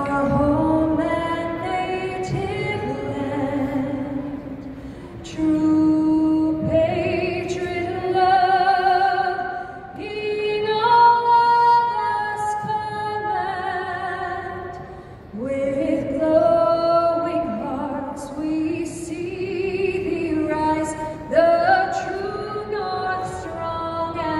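A woman singing long held notes with vibrato, in phrases broken by short pauses.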